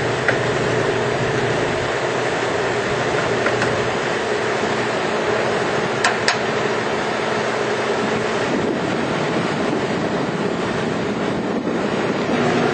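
Steady mechanical running noise with a faint low hum, and two light clicks about six seconds in.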